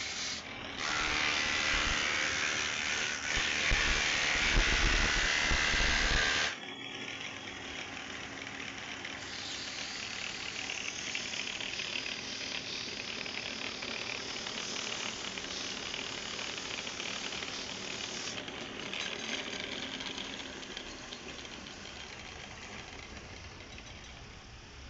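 Wood lathe running with a tool working the spinning wood: a loud rushing hiss from about a second in, cut off abruptly at about six seconds, then a quieter, steady run with a faint motor hum.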